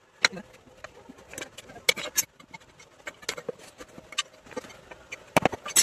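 Irregular light clicks, taps and small metal knocks of hand work on a motorcycle wheel and tyre, with two sharper knocks near the end.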